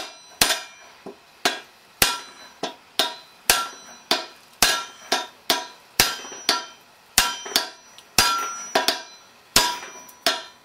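Club hammer striking a ball-pein hammer that is held as a drift on the end of an alternator's shaft, about two blows a second. Each blow is a sharp metal-on-metal clang with a short ring as the shaft is driven out of the front casing's bearing, where it is stuck.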